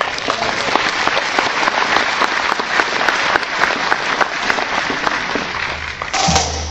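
Audience applauding, many hands clapping together. About six seconds in it cuts off abruptly and music begins.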